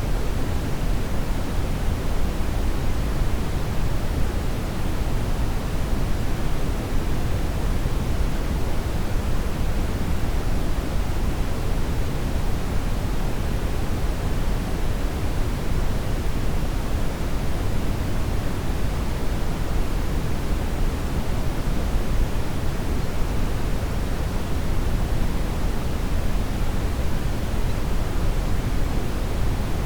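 Steady brown noise: an even, deep rushing hiss, heaviest in the low end, that does not change.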